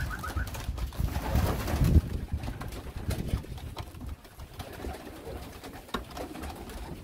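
Racing pigeon hens cooing on a wooden loft landing board, with wing flaps among them, busiest and loudest in the first two seconds, then quieter.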